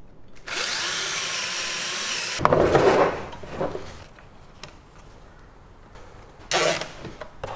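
Cordless battery drill spinning up with a steady motor whine, then a louder, rougher stretch about two and a half seconds in as the bit bores into the wooden frame. Near the end, a short rasp as a cable tie is zipped tight.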